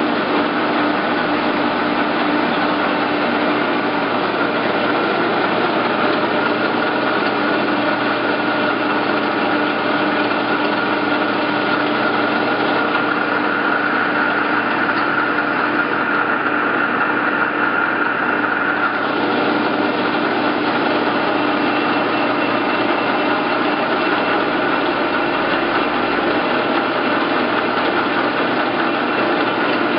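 Nardini SZ 2560T heavy-duty engine lathe running steadily with its 4-jaw chuck spinning in the lower speed range, about 600 RPM. The headstock drive gives a steady whine over a mechanical hum.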